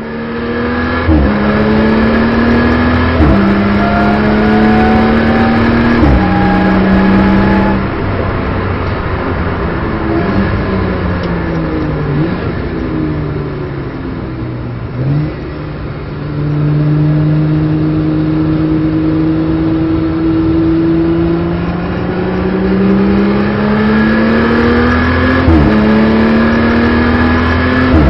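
BMW M240i Racing Cup's turbocharged straight-six engine, heard from inside the car, accelerating hard through the gears. Its pitch climbs in each gear and drops at upshifts about 1, 3 and 6 seconds in. It then falls away off the throttle with a downshift around 15 seconds, and pulls again with upshifts near 25 seconds and at the end.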